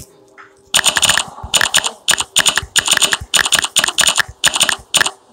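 Typing on a smartphone's on-screen keyboard: a rapid run of short key clicks in quick clusters with brief pauses, starting under a second in.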